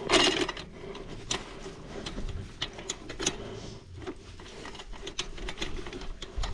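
Irregular metallic clicks and rattles of a dirt bike's loose drive chain being handled and worked back onto the sprocket after it has slipped off.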